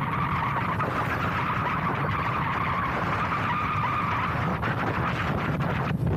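Motorcycle engine running steadily while cruising on a paved road, mixed with wind and road noise.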